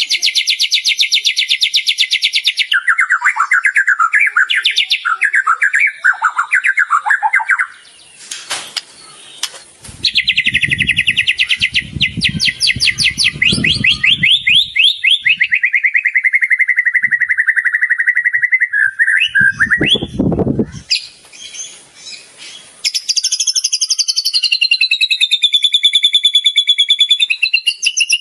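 Songbird song from a masteran tutor track for white-rumped shamas: rapid high trills, choppy chattering phrases, then a long trill that slides down, and near the end a series of repeated rising-and-falling whistles. A low rumble sits under the song about ten seconds in and again around twenty seconds.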